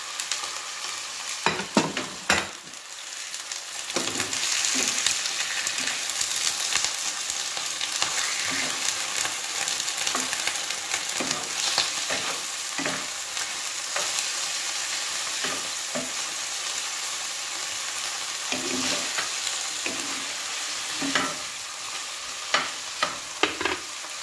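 Chicken pieces sizzling in hot oil with sautéed garlic and onion as they are stirred in the pan. The sizzle grows louder about four seconds in, and a few sharp knocks come near the start and again near the end.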